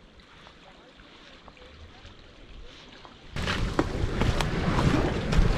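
Faint outdoor ambience with a few soft ticks. A little over three seconds in, a loud rushing noise of wind buffeting the microphone and water at the shore starts abruptly.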